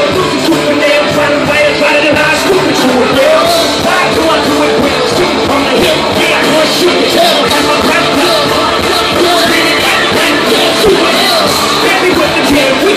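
Loud live concert music from a full band, with a voice singing over it.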